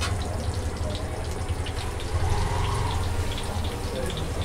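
Mustard seeds sizzling and popping in hot oil during tempering: irregular sharp pops over a steady frying hiss, with a low hum underneath.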